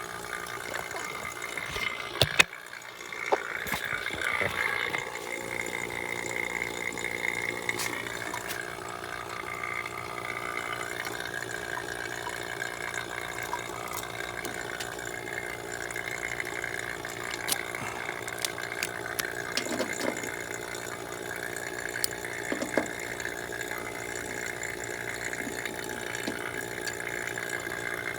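HVAC vacuum pump running steadily, pulling a vacuum on a newly brazed heat pump system to remove moisture. A loud knock comes about two and a half seconds in, and scattered sharp clicks follow.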